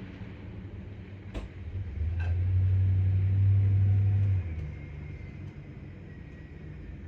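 A steady low drone swells about two seconds in, holds for about two and a half seconds, then drops back to a quieter rumble. A single sharp click comes a little over a second in.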